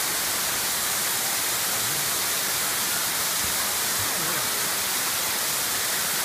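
Waterfall's falling water, a steady, even rush.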